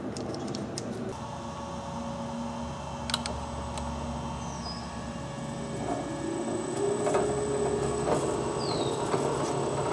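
Variable-speed drill press motor running, speeding up about six seconds in with a rising hum, over a steady high whine.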